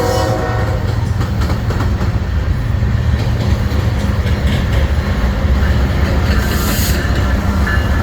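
A train's horn stops in the first half-second, then the train rolls past with a steady heavy rumble and the clatter of wheels over rail joints.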